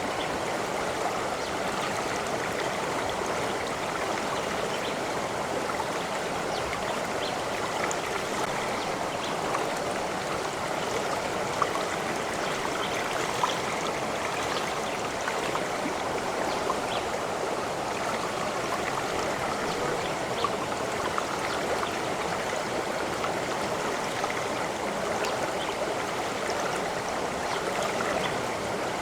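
Stream of water running steadily over rocks, an even rushing babble with small splashes and drips scattered through it.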